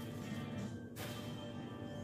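Background music with steady held tones, and a brief noise about a second in.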